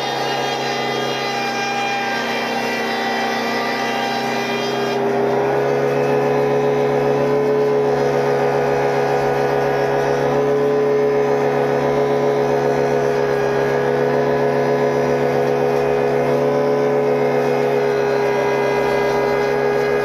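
Sawmill woodworking machinery running steadily with a droning hum, growing a little louder about five seconds in.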